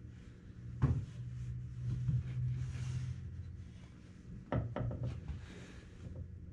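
Wooden rocking chair being handled and shifted: a sharp wooden knock about a second in and another about four and a half seconds in, with soft rubbing between them, over a steady low hum.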